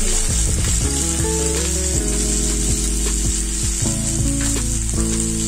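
Onion, tomato and cashew pieces sizzling steadily in hot oil in a wok over a high flame, with a few light stirring ticks, under soft background music with held chords.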